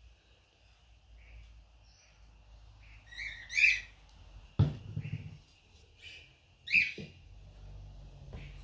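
A bird chirping, a loud call about three and a half seconds in and another near seven seconds, over a faint steady high tone. Between them, at about four and a half seconds, comes a sharp wooden knock as the glued timber pieces of the bee box are pushed together, followed by a few lighter knocks.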